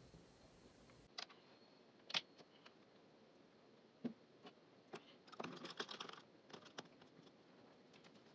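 Faint scattered clicks and taps of plastic paint tubes, caps and a paintbrush being handled against a plastic palette and a wooden desk, with a quick run of clicks about five to six seconds in.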